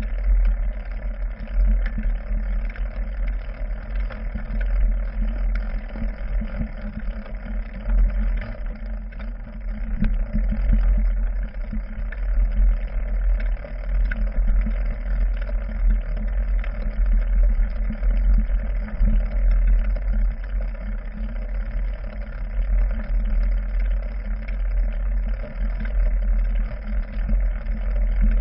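Mountain bike rolling slowly over rough forest trail, heard through a handlebar-mounted GoPro Hero 3: a steady deep rumble from the handlebar with frequent small knocks and rattles as the wheels hit bumps.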